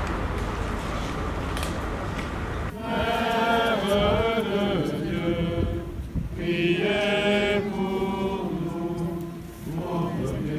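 A crowd singing together in slow, drawn-out notes, starting about three seconds in; before that a steady rushing noise.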